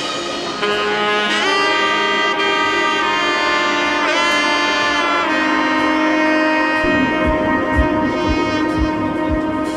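Background music: a saxophone-like melody over held chords, with a soft beat entering about seven seconds in.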